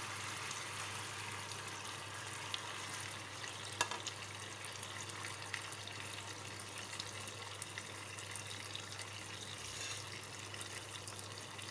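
Tomato sauce sizzling with a steady hiss in a frying pan as boiled macaroni is tipped in and stirred with a silicone spatula, with a couple of light knocks of the spatula against the pan a few seconds in.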